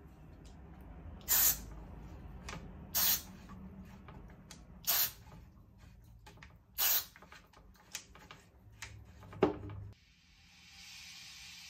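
DeoxIT contact cleaner sprayed from an aerosol can in short bursts into the amplifier's potentiometers and contacts to clean them: four main hisses about a second and a half to two seconds apart, with small clicks between them.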